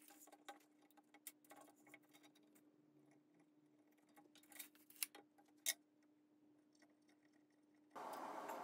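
Faint scattered clicks and taps of small hardware being handled during frame assembly, with two sharper clicks about five seconds in. Near the end a steady rushing noise comes in, louder than the clicks.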